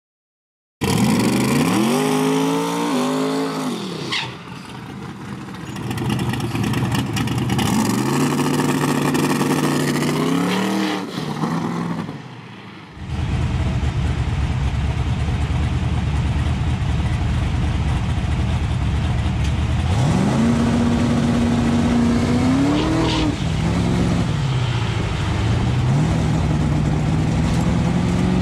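Drag car engine revving in two sharp rises and falls. About halfway through the sound changes suddenly to a lumpy idle, which rises into a rev held for a couple of seconds, drops, then settles into a steady higher run as the car rolls forward on its slicks.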